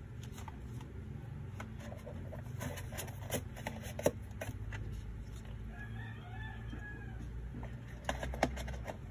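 Hands handling a cardboard box, its plastic insert and a small device with its cable, giving scattered sharp clicks and taps, the loudest about four seconds in and twice near the end. Midway, a rooster crows once in the background, a single drawn-out call of about a second and a half. A steady low hum runs underneath.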